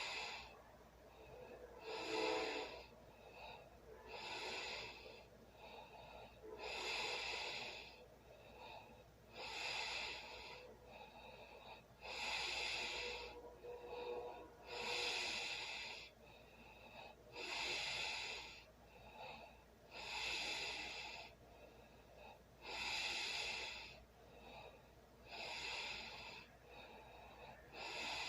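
A sleeping person breathing loudly: an airy rush of breath about every two and a half seconds, in a steady rhythm.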